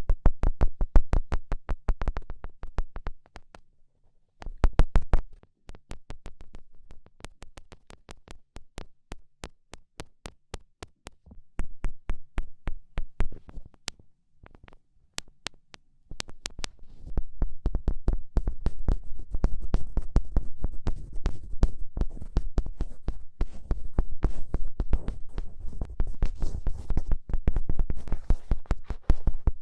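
Rapid fingertip tapping, a fast even run of sharp clicks with low thuds under them. It thins out and gets quieter in the middle, then comes back thick and louder from about halfway.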